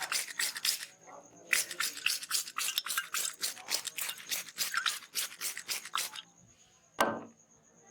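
Hands rubbing briskly over an oiled scalp and hair in a head massage, a fast run of hissing strokes at about four or five a second. The rubbing stops, and about seven seconds in there is one sharp snap.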